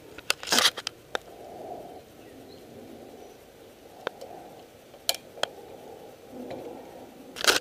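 A handful of scattered sharp clicks and knocks as a DSLR camera is released from a steadicam's quick-release plate and slid off it by hand.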